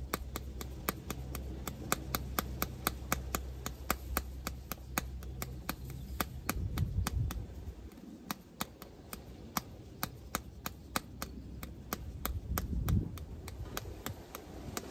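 Rubber flip-flops slapping against bare heels as the feet flex, a quick steady rhythm of about two to three slaps a second.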